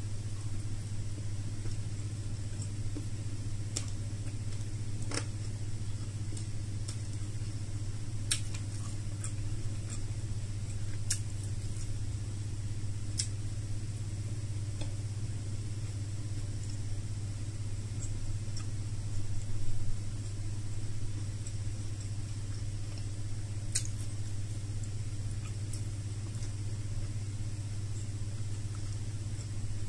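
A steady low hum throughout, with a few faint sharp clicks and smacks from someone eating by hand and chewing.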